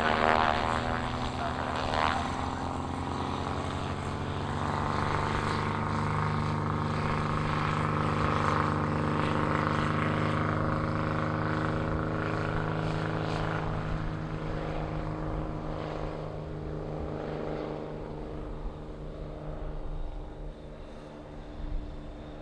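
Propeller aircraft running with a steady, droning propeller hum, fading over the last several seconds.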